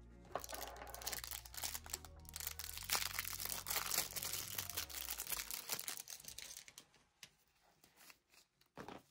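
Packaging of a set of solid gel polishes being torn and crinkled open: rapid crackles and clicks for about six seconds, then a few scattered clicks.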